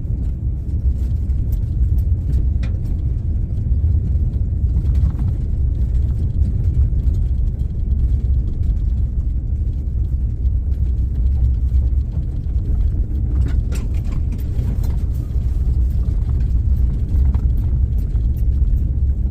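Four-wheel-drive vehicle driving, heard from inside the cab: a steady low rumble of engine and road noise, with a few faint clicks.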